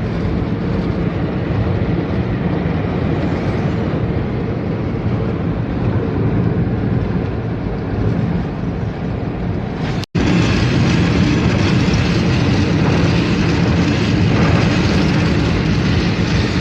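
A car driving slowly on a highway in strong wind: steady road and engine noise with wind rushing against the car. About ten seconds in there is a brief dropout, after which the rush is louder and hissier.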